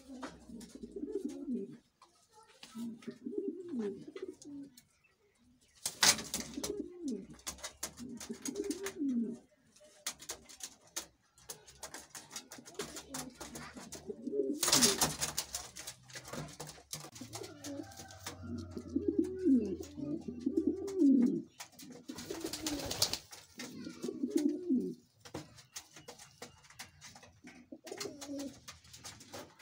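King pigeons cooing: low, rolling coos repeated every second or two. Scattered light clicks and three louder bursts of rustling noise come through in between.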